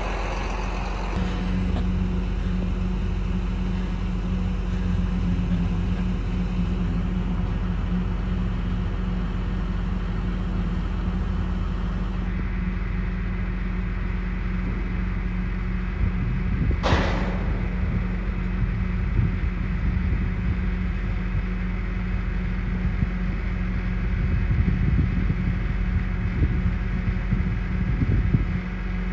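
Steady drone of a running vehicle engine, with a constant low hum. There is one short sharp knock about halfway through.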